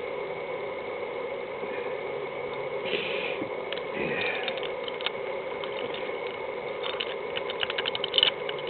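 Small metal parts of an ignition lock barrel being fiddled with by hand: scattered light clicks and taps, then a quick run of clicks near the end, over a steady background hum.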